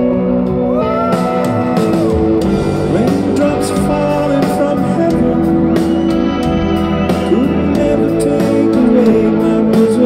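Live pop band playing a slow song with singing voices over keyboards.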